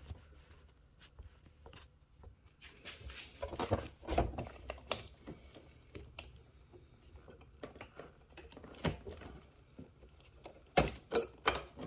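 Scattered light clicks and knocks of hands handling parts on a stripped-down motorcycle, with a few sharper clicks near the end.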